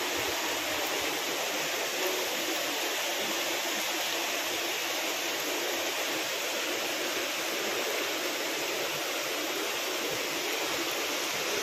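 Mountain stream rushing over rocks in small cascades, a steady, even rush of water.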